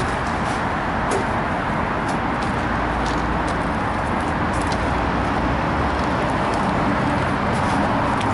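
Steady engine and road noise of a small cargo van while driving.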